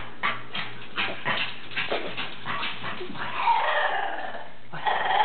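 Dachshund vocalising in its odd, talking-like 'singing': a quick run of short yips and grunts for about three seconds, then a longer wavering whine-howl, and another starting near the end.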